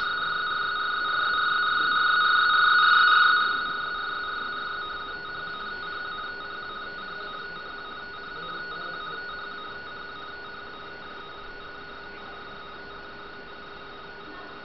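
RTTY radioteletype audio: a pair of close, steady tones (mark and space) sounding continuously. It is loud for the first three seconds or so, then drops and carries on more quietly.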